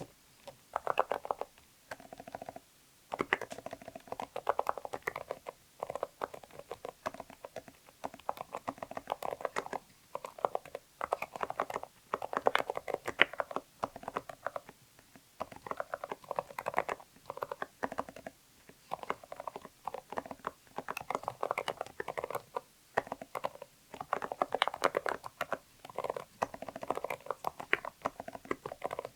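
Continuous typing on a Zoom65 mechanical keyboard with an aluminium plate, Kailh Deep Sea Silent Box Islet linear switches and PBT double-shot keycaps. The keystrokes are soft, muted clicks in quick runs of a second or two with short pauses between.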